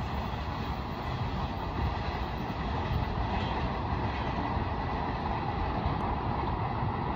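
Freight train wagons rolling over the rails as the end of the train moves away, a steady rumble.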